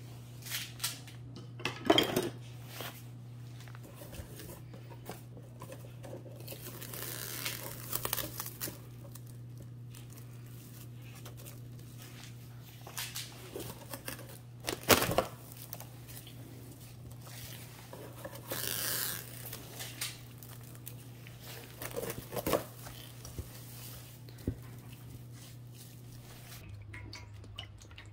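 Kitchen handling noises: scattered clinks and knocks of bowls and utensils and brief rustles, the loudest about two seconds in and halfway through, over a steady low hum that drops near the end.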